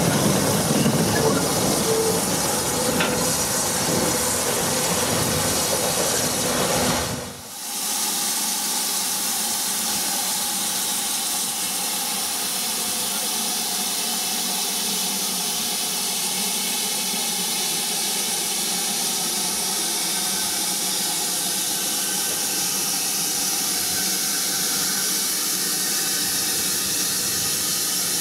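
Steam locomotive 73050, a BR Standard Class 5, heard close by: a low rumble mixed with steam hiss for about the first seven seconds. Then, after a brief break, a steady hiss of escaping steam from the standing engine, with no rumble beneath it.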